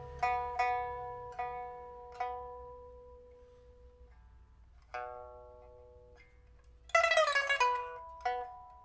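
Pipa (Chinese lute) of padauk with white ox-horn fittings, newly fitted with a fire-baked soundboard and bamboo frets, being played: a few separate plucked notes that ring and slowly fade, then about seven seconds in a fast tremolo run with bent, falling pitches, followed by more plucked notes.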